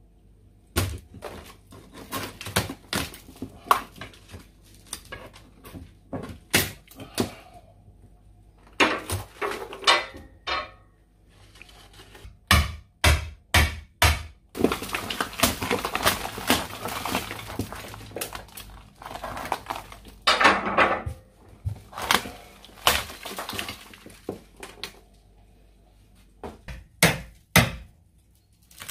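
Hammer and pry bar ripping a wooden door frame off a wall: repeated sharp knocks and cracks at an uneven pace, with two longer stretches of tearing and breaking about halfway through.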